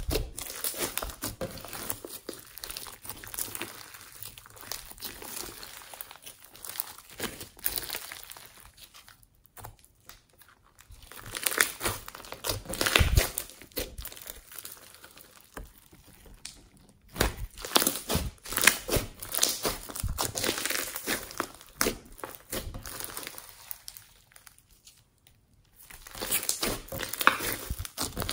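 Hands squeezing and kneading a lump of green homemade slime mixed with small beads, giving quick sticky clicks and crackles. It pauses briefly three times.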